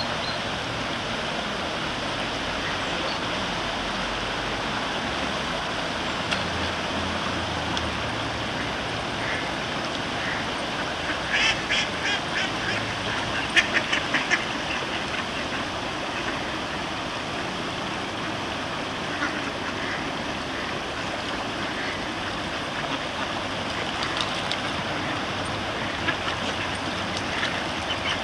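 Steady rush of a shallow, fast-flowing stream, with ducks quacking over it: a quick run of quacks about halfway through and more scattered quacks near the end.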